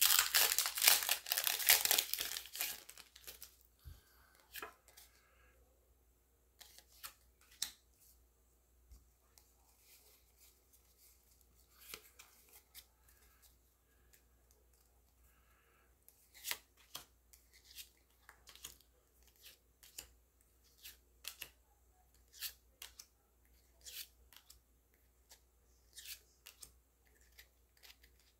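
Foil wrapper of a Pokémon trading-card booster pack crinkling and tearing open for the first few seconds. Then scattered soft clicks and ticks as the cards are handled and slid off the stack one by one, more often in the second half.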